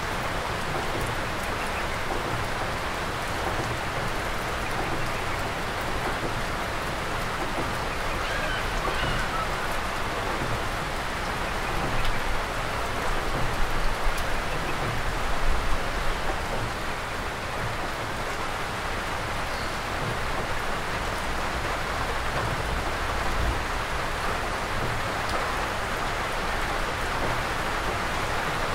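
Steady rain falling, an even hiss, with a few low rumbling swells about halfway through.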